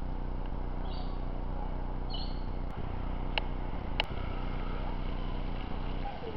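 A steady low machine hum, with a few short bird chirps about one and two seconds in and two sharp clicks a little past the middle.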